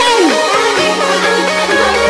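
Electronic dance music: a synth melody moving in steps over held bass notes that change about once a second.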